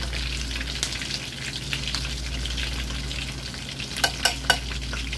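Chicken thighs deep-frying in hot oil in a metal wok, a steady crackling sizzle. About four seconds in, the metal tongs turning the pieces clack against the pan three times in quick succession.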